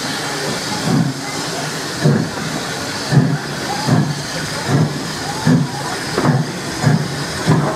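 C class 0-6-0 steam locomotive working a train away from a start: its exhaust beats sound over a steady hiss and quicken from about one a second to nearly two a second as the train gathers speed.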